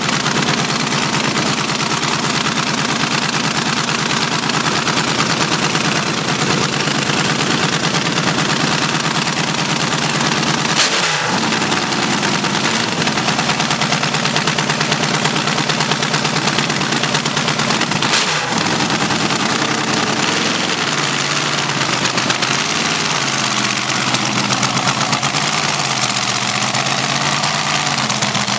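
Two nitro-burning dragster engines running together on open exhaust headers, a loud, harsh, popping idle. About 11 seconds in and again about 18 seconds in the engines dip with a sharp crack, and in the later part the pitch rises and falls with throttle blips.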